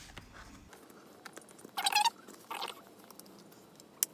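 A metal grommet being pressed into a tight, undersized hole in a foam hextile: two short squeaky rubs of metal against foam about two seconds in, then a small click near the end.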